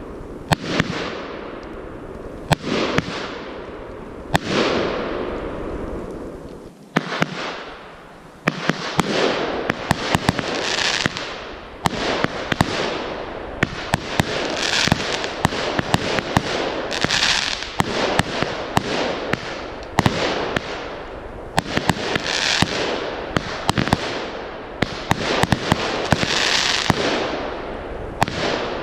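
Consumer firework batteries (cakes) firing shot after shot: a steady run of launch thumps and sharp bangs from small aerial bursts, each trailing off into a hiss, with a brief lull about seven seconds in.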